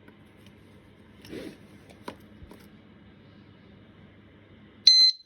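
Faint handling of a 110 dB disc lock alarm with a rustle and a sharp click as it is fitted, then near the end one short, loud, high-pitched beep from the lock, the signal that it has locked.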